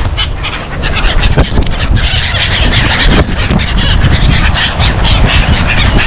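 A flock of gulls calling and flapping close by, a dense chorus of harsh cries and wingbeats over a steady low rumble.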